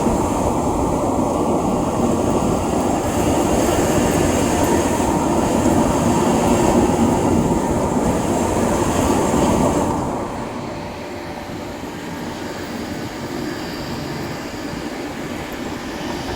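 Large vertical lathe running, a steady rumbling machine noise with a high hiss. About two-thirds of the way through it drops noticeably in level and the hiss stops.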